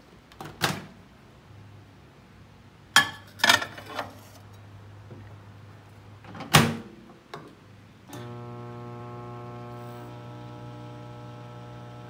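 Electrolux manual-dial microwave oven: its door clicks open, there are knocks and a clatter as the plate goes in, the door shuts with a loud snap about six and a half seconds in, and a moment later the oven starts with a steady electric hum.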